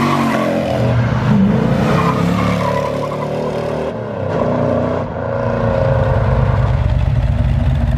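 Car engine revving, its pitch rising and falling, settling about five seconds in into a steady, loud, rapid rumble.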